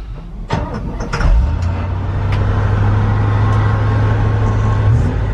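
1976 Chevy C50 truck's 350 small-block V8 started with the key: a brief crank about half a second in, the engine catching within about a second, then idling steadily, heard from inside the cab. It fires right up and runs smooth.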